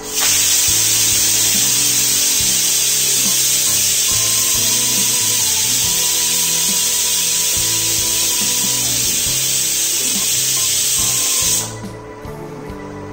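Pressure cooker whistling: steam hisses out loudly and evenly for about eleven seconds, then cuts off abruptly. It is the second whistle, the sign that the rice inside is cooked and the cooker can come off the heat.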